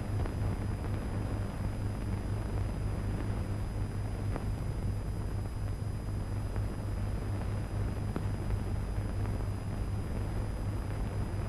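Steady low hum and hiss of an old, worn film soundtrack, with a few faint crackles, between lines of dialogue.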